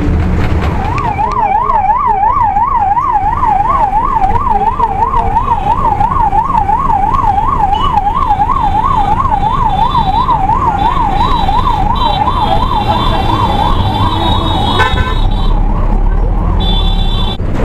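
Ambulance's electronic siren warbling fast, about three rises and falls a second, starting about a second in and cutting off near the end, over the steady rumble of a city bus's engine and road noise.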